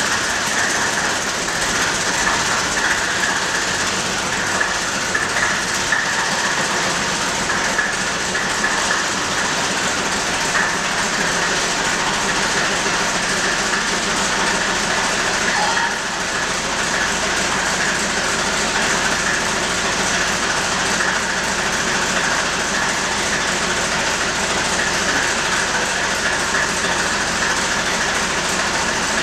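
IFA S4000 truck's four-cylinder diesel engine running steadily soon after a cold start, with a slight dip in level about halfway through.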